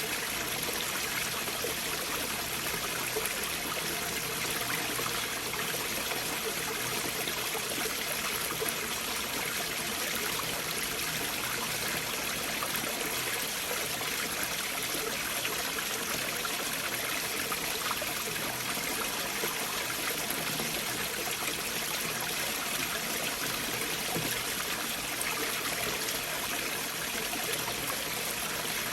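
A stream flowing beneath large boulders: steady, unbroken running water with no changes or separate events.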